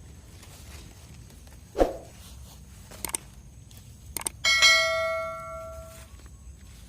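A single metallic ring, struck once about three and a half seconds in and fading away over about a second and a half, with a dull thud and a few sharp clicks before it. A faint, steady high-pitched hum runs underneath.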